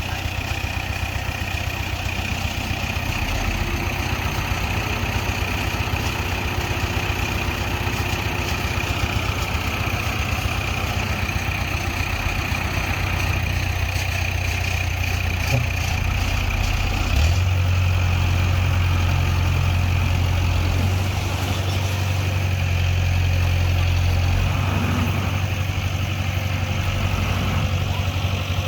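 Diesel engine of heavy earthmoving machinery running steadily with a low drone, growing louder about seventeen seconds in and easing slightly later.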